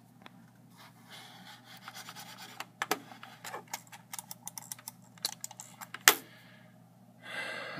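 Scattered clicks and rattles of a USB mouse cable and plug being handled and pushed into a computer's USB port, with one loud click about six seconds in, over a steady low hum.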